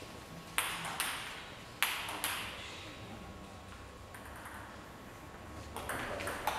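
Table tennis ball hitting bats and the table: four sharp clicks in pairs in the first two and a half seconds, then a quicker run of clicks near the end as a rally gets under way. The clicks echo slightly in the hall.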